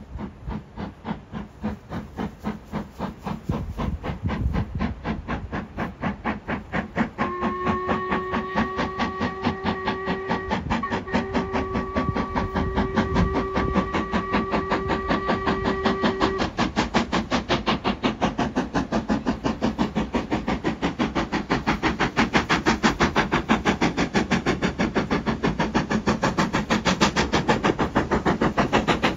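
Steam locomotive of the Jacobite steam train working hard, its exhaust beating in a fast, even rhythm that grows steadily louder. About seven seconds in its steam whistle sounds one long blast, broken briefly partway, lasting some nine seconds.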